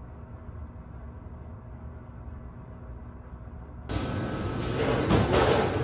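A steady low rumble of room or city background noise. About four seconds in it switches abruptly to louder, busier indoor shop ambience with a faint steady whine.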